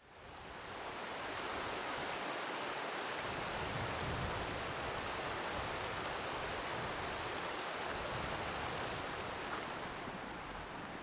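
Steady outdoor rushing noise, fading in from silence over about the first second and then holding even, with no distinct events.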